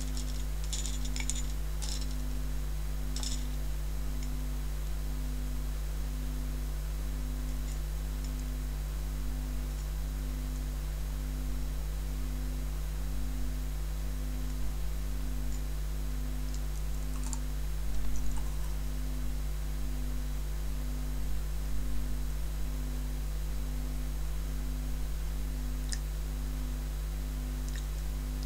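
Sparse light clicks and taps of chopsticks picking at Skittles, a few near the start and a couple later on, over a steady low hum that pulses a little more often than once a second.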